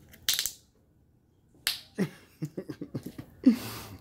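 Bead-filled glue slime squeezed and kneaded by hand, giving a short crackle, then a quick run of wet clicks and pops and a louder squelch near the end.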